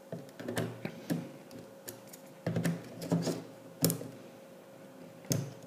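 Small plastic clicks and taps as a lithium-ion battery is pushed into a Nikon D3400's grip compartment and the battery door and latch are worked, with a sharp click a little before four seconds in and another cluster near the end.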